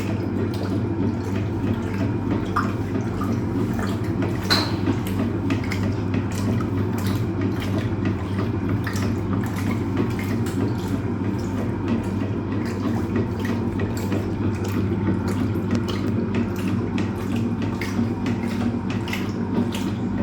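Hoover Automatic 820 top-loading washing machine in its wash, its agitator churning the load: water sloshing and splashing over a steady motor hum.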